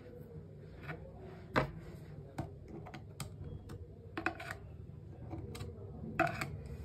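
Scattered light clicks and taps of a kitchen knife against a small plastic chopper bowl as paneer and curd are pushed around inside it.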